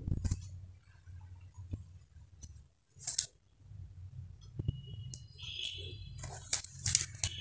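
Quiet handling of cotton lining fabric: faint rustles and light taps of hands and tailor's chalk on the cloth, with one brief scratchy stroke about three seconds in, over a low steady hum. A short high tone sounds a little after the middle.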